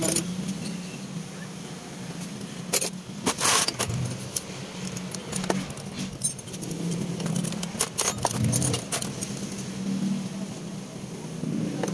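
Small metal carburetor parts clinking and rattling as they are picked up and handled in a plastic basin, with scattered sharp clacks, several a little after the third second.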